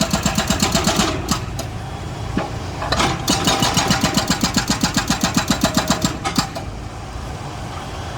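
Excavator at work: a rapid mechanical pulsing, about ten beats a second, over a steady engine sound. The pulsing breaks off about a second in, resumes about three seconds in and stops again after about six seconds.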